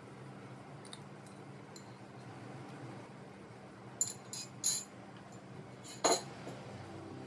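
Metal kitchen utensils clinking against a ceramic plate. A few light ticks come first, then a quick run of clinks about four seconds in and one sharper clink that rings briefly about six seconds in.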